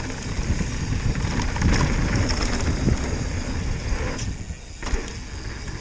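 Mountain bike running fast down a packed-dirt trail: steady tyre roar, frame rattle and wind rushing over the helmet camera's microphone. The noise drops away briefly a little past four seconds and a sharp knock follows.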